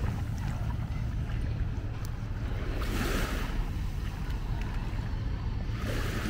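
Small sea waves washing up on a sandy beach in two hissing swells, about three seconds in and again near the end, over a steady low rumble of wind on the microphone.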